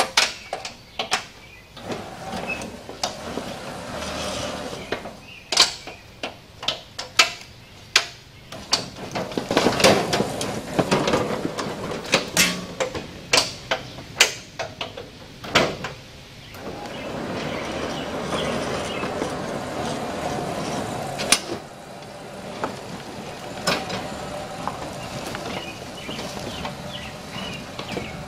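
Homemade electric lawn tractor ramming and pushing a pile of wooden boards. For about the first sixteen seconds there is a rapid series of sharp knocks and cracks of wood and metal. After that the tractor's drive gives a steadier drone, broken by a few more knocks.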